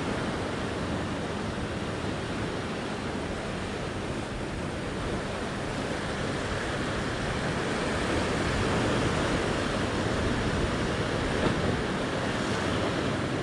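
Ocean surf washing over a rock shelf: a steady rushing of breaking and draining water that grows a little louder about halfway through.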